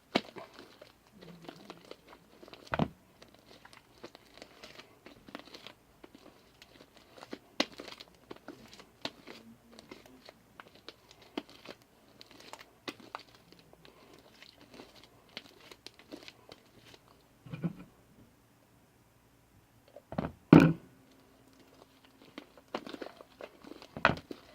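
Fluffy slime of glue and shaving cream being kneaded and stretched by hand, giving off irregular sticky crackling and squelching clicks, with a few louder knocks, the loudest about 20 seconds in.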